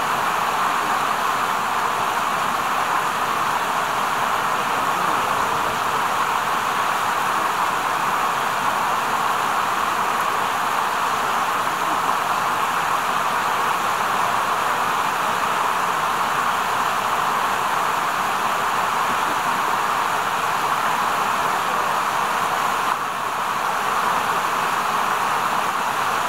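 Steady, even rushing noise with no separate sounds in it, dipping briefly a few seconds before the end.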